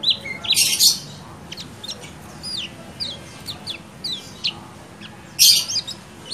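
Kecial kuning, a yellow white-eye, giving its 'ciak ciak' calls: a run of short, sharp, downward-slurred high chirps, broken by two loud chattering bursts, about half a second in and about five seconds in.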